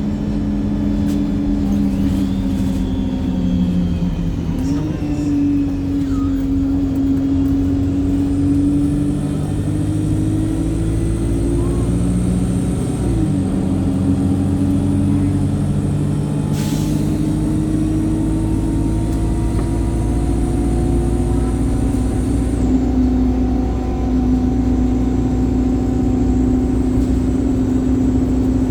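Wright StreetLite single-deck bus's four-cylinder Cummins diesel running hard under load, its note climbing slowly and dipping sharply twice, about four and twelve seconds in, as the automatic gearbox changes up. A brief hiss cuts in about sixteen seconds in.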